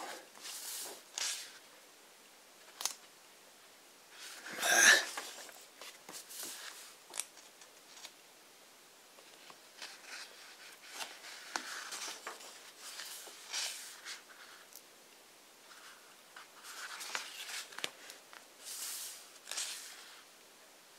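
Pages of a large hardcover book being turned one after another: a string of short papery swishes and rustles, the loudest about five seconds in.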